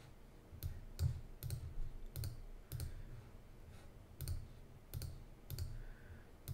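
Computer mouse button clicked about ten times at an uneven pace, each sharp click with a dull low knock beneath it.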